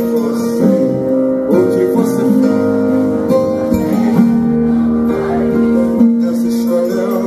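Instrumental music led by guitar, sustained chords changing about once a second.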